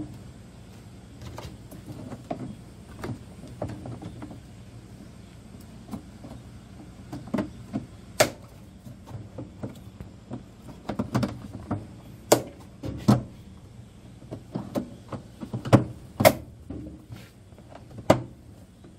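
Plastic parts of a top-loading washing machine knocking and clicking as the tub's cover ring is fitted and pressed into place by hand, with several sharper snaps in the second half.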